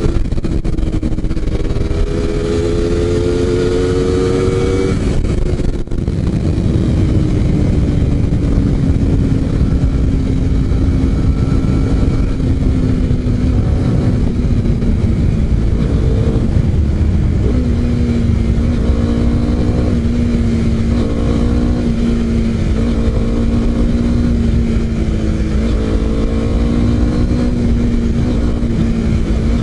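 Honda CBR250RR's parallel-twin engine running under way. Its note rises for the first five seconds, breaks briefly near six seconds as if for a gear change, then holds a fairly steady cruising note with small shifts in pitch. Wind rush sounds on the helmet camera throughout.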